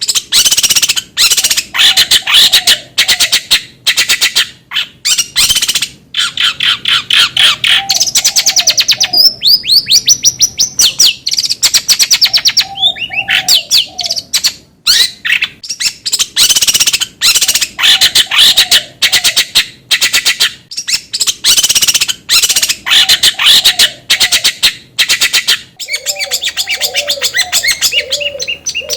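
Long-tailed shrike (cendet) song: a loud, rapid, harsh chattering stream of high notes, with a run of falling whistled notes around ten seconds in and a lower warbled phrase coming back every few seconds. About 26 seconds in, a low steady hum comes in underneath.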